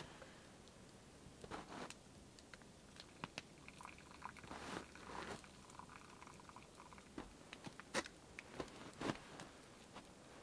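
Faint chewing and biting of food, with scattered sharp clicks, the loudest about eight and nine seconds in.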